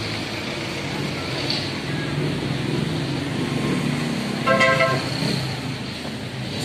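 Road traffic with a vehicle engine running, and one short vehicle horn toot about four and a half seconds in, the loudest sound.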